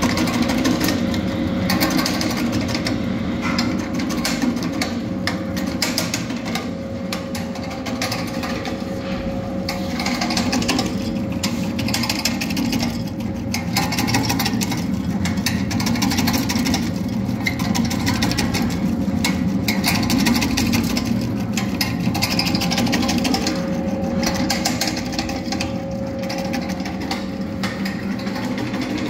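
Supari (areca nut) cutting machine running as whole nuts are fed in and sliced, a dense rapid clatter of clicks from the blade and gears over a steady hum.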